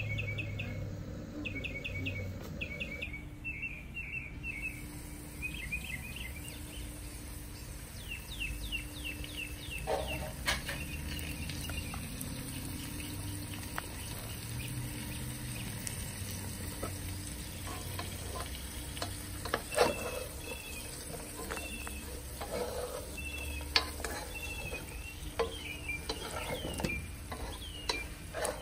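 Potato chunks sizzling as they fry in a pot, with occasional knocks and scrapes of a spatula against the pan. Clusters of short high chirps sound in the background.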